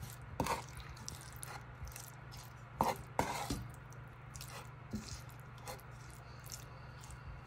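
Wooden slotted spatula scraping and knocking against a nonstick pan as sautéed peppers, onions, mushrooms and melting cheese are stirred: a few short, irregular scrapes over a steady low hum.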